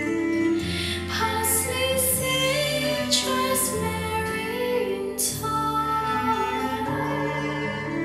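Music played back through Bowers & Wilkins 804 D4 floor-standing loudspeakers driven by an Accuphase E-480 integrated amplifier, heard in the room: slow, sustained notes with a few brief bright accents.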